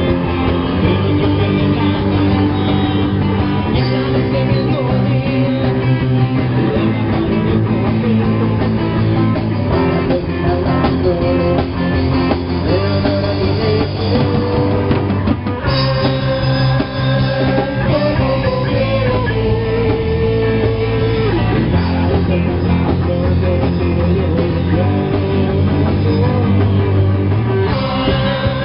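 A live rock band playing loud, with electric guitar over a drum kit and cymbals.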